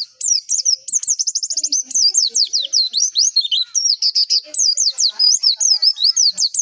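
White-eye (pleci) singing a rapid, high-pitched twittering song of quick slurred notes, with a fast trill about a second in.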